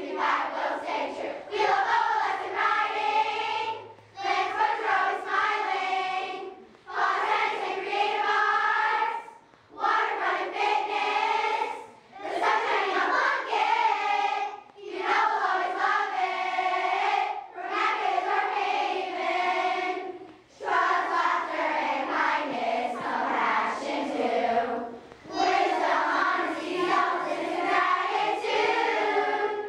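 A large group of girls singing a song together in unison, in phrases of two to three seconds with short breaks between them.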